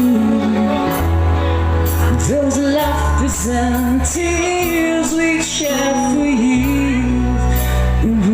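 A band playing a slow song at a sound check, a singing voice carrying the melody over held bass notes that change every second or two, with light cymbal strokes.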